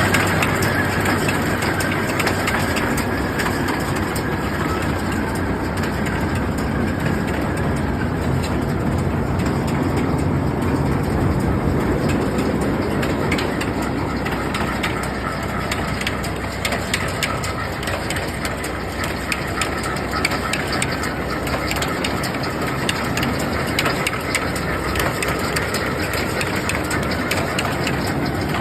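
Vermeer 605F round baler running behind a tractor: a steady mechanical clatter with a faint whine over the tractor engine. Rapid rattling clicks are thickest midway through.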